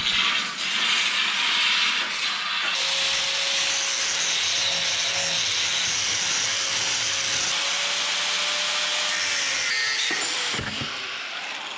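Angle grinder running and grinding steel, a loud steady grinding noise with a faint whine under it; near the end the pitch falls as the grinder slows.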